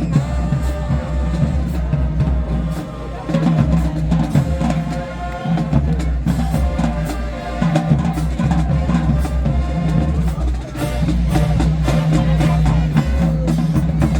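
High school marching band playing: brass holding sustained notes over a steady drumline beat with heavy bass drums.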